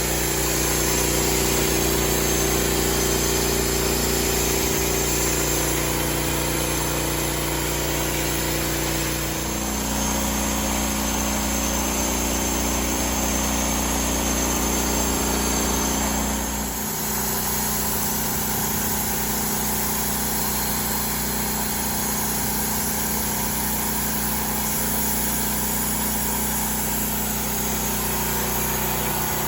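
Engine of a homemade sawmill running steadily. Its pitch steps to a new level about ten seconds in and again a little past halfway.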